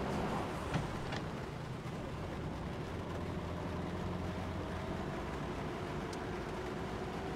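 Steady engine hum and road noise of a moving car, heard from inside its cabin, with a faint tone that rises slowly in pitch. There is a short click just under a second in.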